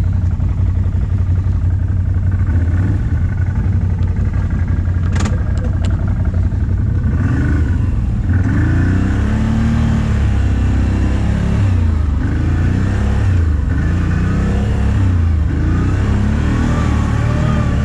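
CFMoto ATV engine running while the quad is ridden, its pitch rising and falling again and again from about halfway through as the throttle is opened and closed. A single brief knock about five seconds in.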